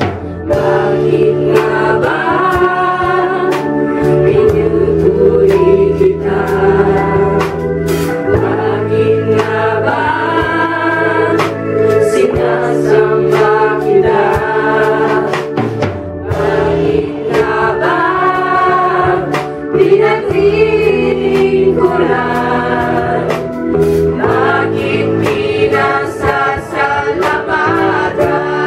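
Live worship band: a group of mostly female singers in unison over electric bass, guitar and drums.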